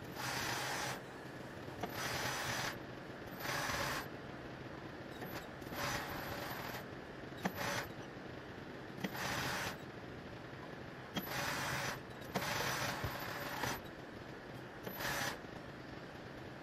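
Mattress tape edge machine's sewing head running in short bursts of half a second to a second, starting and stopping every second or two, over a steady low hum.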